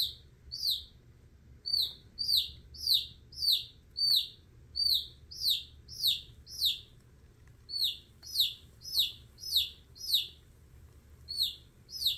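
Domestic chick peeping loudly in distress while a kingsnake swallows it: a steady run of short, high peeps that slide downward, about two a second, with a brief pause near the end.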